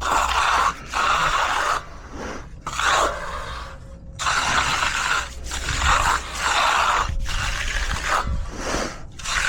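A hand tool scraping across wet concrete in repeated strokes, about one a second, as the slab surface is worked and finished.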